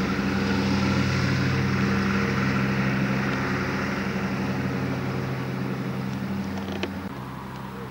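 An engine running with a steady low drone that slowly grows fainter, with a single small click near the end.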